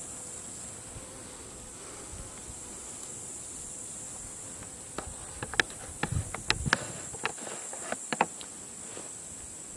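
Steady high-pitched insect chirring from the summer grass, with a cluster of sharp clicks and knocks about halfway through.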